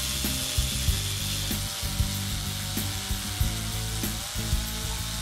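Cordless electric screwdriver backing a screw out of the side of a bass amp cabinet, with clicks about every half second.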